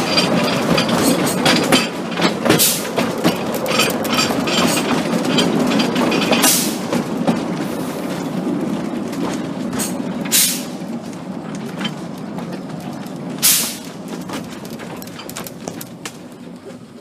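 Narrow-gauge steam train heard from aboard a carriage: wheels rumbling and clicking over the rail joints as it slows, with a short hiss every three to four seconds. The running noise fades toward the end as the train draws to a stop.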